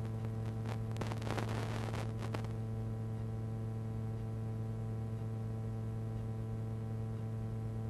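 Steady electrical buzz, a low hum with a stack of overtones, carried on the audio of an analog FPV video feed from a drone whose motors are disarmed. For the first two seconds or so there are rustles and clicks as a hand handles the drone's battery.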